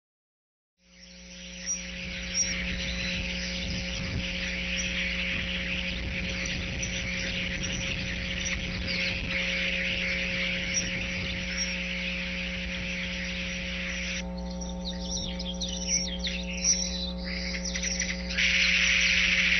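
Early-morning bird chorus of many small chirps and calls, picked up by a nest-camera microphone, over a steady electrical hum. It begins about a second in, thins out about two-thirds of the way through, and swells again near the end.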